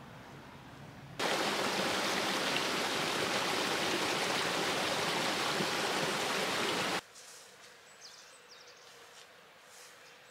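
Shallow woodland stream running over stones, a steady rush of water that starts suddenly about a second in and cuts off about six seconds later.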